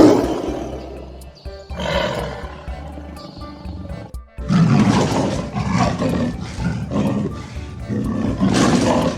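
Loud animal calls over background music: a sudden call at the start, another about two seconds in, then a longer run of rough calls from about four and a half seconds on.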